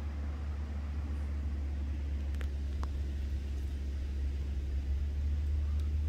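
Steady low rumble, with a couple of faint short high chirps or ticks around the middle.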